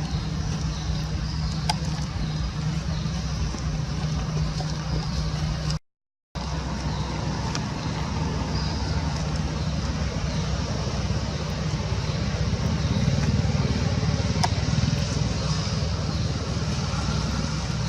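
Steady low rumble of outdoor background noise, with faint high chirps above it, cut off by a half-second of silence about six seconds in.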